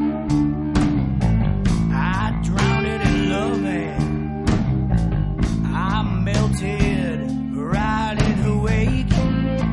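Background music: a guitar-led song with a steady beat and a bending melody line.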